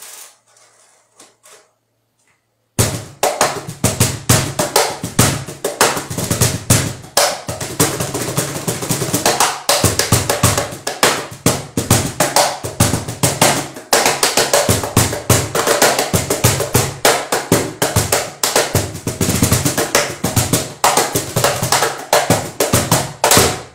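Homemade wooden cajón played with bare hands: a fast, continuous run of deep bass strokes and sharper slaps, starting about three seconds in and stopping abruptly near the end.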